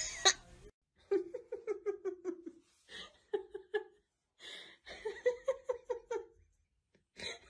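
A cat's loud cry cuts off in the first second. Then a person laughs in three runs of quick, high-pitched giggles, with short pauses between them.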